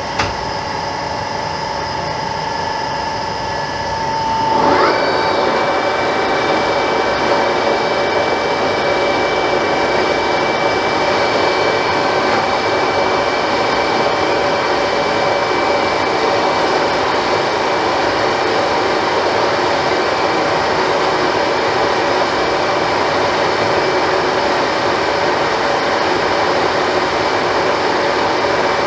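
Old R5 metal lathe running with a steady gear whine while taking a boring cut in a kart engine cylinder. About five seconds in, the whine rises in pitch and the machine gets louder, then it runs steadily on.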